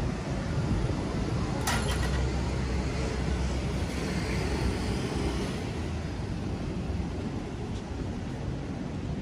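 City street ambience: a steady low rumble of road traffic, with a couple of sharp clicks about two seconds in.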